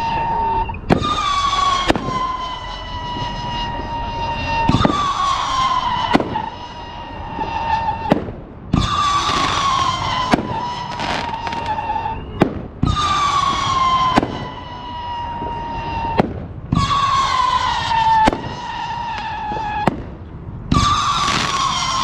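A 500 gram, 24-shot consumer firework cake firing shot after shot, with sharp bangs of launches and breaks. About every four seconds a loud whistle starts, falling slightly in pitch over a few seconds, while more bangs go off.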